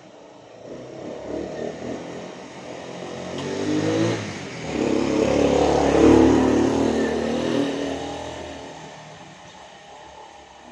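A motor vehicle engine, growing louder with its pitch rising over the first four seconds, loudest about six seconds in, then fading gradually.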